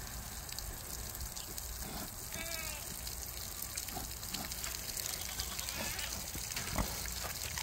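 A piglet gives one brief high squeal about two and a half seconds in, over a steady background hiss with a few faint soft clicks.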